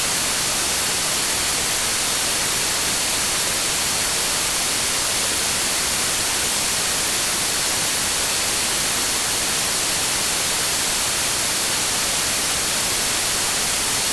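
Steady synthetic noise played as a sleep and tinnitus-masking sound: an even, unchanging hiss, brightest in the treble, with a faint high tone running through it.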